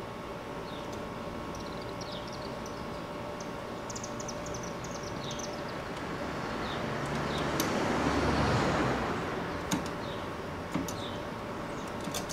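Birds chirping in short quick calls, then the sound of a passing vehicle swelling and fading over a few seconds. A few sharp clicks follow as food is taken off the smoker racks.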